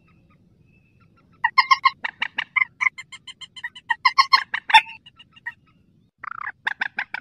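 Call of a mandar sawah, a rice-field rail: runs of short, harsh, rapidly repeated notes, several a second, starting about a second and a half in and going on for about four seconds, then a short pause and another burst near the end.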